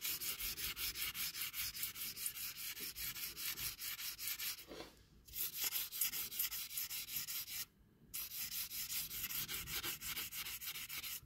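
Abrasive paper on a small sanding block rubbed back and forth over the die-cast metal roof of a Dinky Toys Austin 1800, smoothing a JB Weld filler repair. Quick, light, scratchy strokes, about four to five a second, pausing briefly twice.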